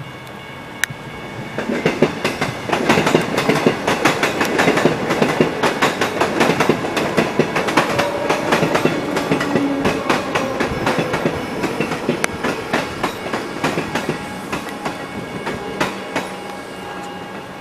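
A train passing over a level crossing: a rapid run of wheel clicks over the rail joints builds about two seconds in and fades near the end. The crossing's electronic bell rings faintly behind it.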